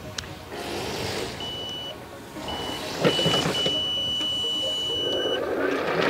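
RAYMO Torpedo electric remote-control slope mower powering up and setting off, its electric motors running with a high steady whine in short stretches and then a longer one, getting louder from about halfway through.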